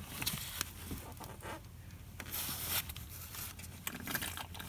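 A syringe drawing power steering fluid out of the open hose fitting, with a short sucking hiss about halfway through among light clicks and rustling of gloved hands.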